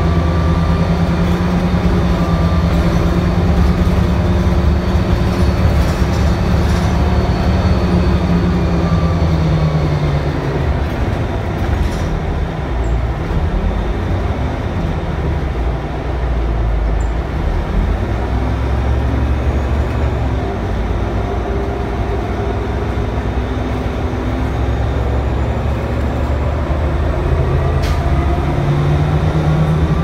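A bus's natural-gas Cummins Westport B Gas Plus engine and Allison transmission heard from inside: the engine's drone falls in pitch as the bus slows about a third of the way in, stays low through the middle while it sits in traffic, then climbs again near the end as the bus pulls away.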